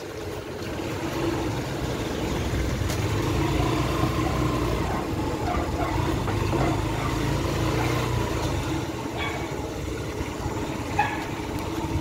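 Motorcycle running steadily on the road, a low rumble with a faint steady engine tone, growing a little louder over the first couple of seconds. A short sharp click sounds near the end.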